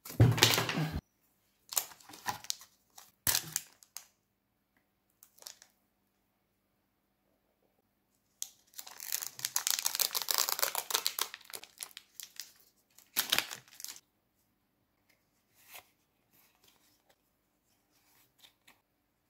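Foil Pokémon booster pack wrapper being torn open and crinkled: a long stretch of crinkling and tearing about halfway through. Before it come short rustles and knocks of cards being handled, and after it faint slight card sounds.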